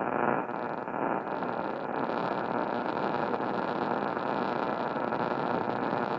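Radio static: a steady hiss from a weakly received broadcast station, with no tone or voice coming through.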